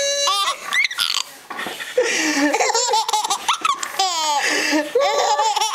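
Baby laughing in several bouts of pitched, breathy laughs, with a short lull about a second and a half in.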